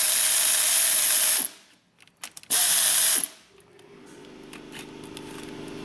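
Pneumatic air ratchet (an impacting, reactionless type) spinning a nut off, in two loud hissing runs: the first about a second and a half long, then a pause with a few clicks, then a shorter second run. After that a low steady hum comes in and slowly grows louder.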